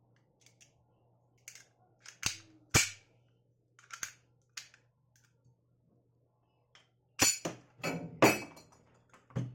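Sharp metallic clicks and clacks of a semi-automatic pistol being handled and racked. There are two loud clacks a half-second apart, a pair of softer clicks, a rapid cluster of clacks about seven seconds in, and one last click near the end.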